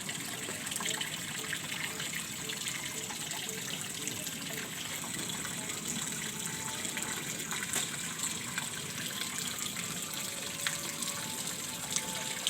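Steady rush of flowing water from a small river or stream.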